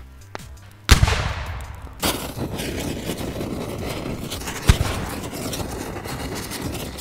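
Explosion sound effect: a sharp blast about a second in that fades into a long rushing, crackling fire noise, with another bang near five seconds, as the toy bus goes up in flames.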